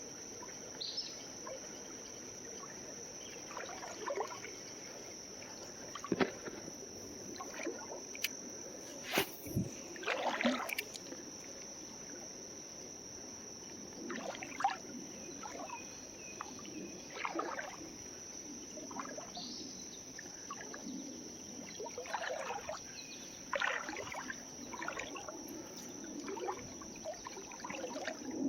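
Steady high-pitched insect drone over a faint trickle of creek water, with scattered brief rustles and knocks.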